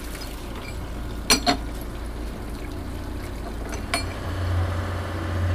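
Water lapping over a steady low hum, with two sharp knocks about a second and a half in and another near four seconds; the hum grows louder near the end.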